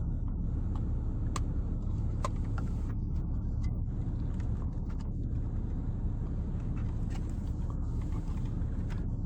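A steady low rumble, with a few faint clicks about one and a half and two seconds in.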